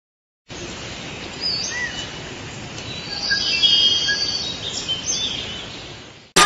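Forest ambience: a steady hiss with scattered bird chirps and short whistles. It starts about half a second in, is loudest in the middle and fades out near the end.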